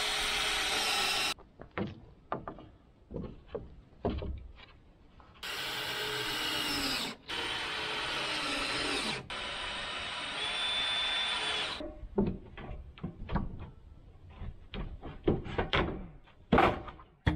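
Power drill driving screws into wood trim, in several runs of a second or two, its motor whine sagging as each screw bites. Short sharp knocks fill the gaps between runs, and a quick series of knocks comes near the end.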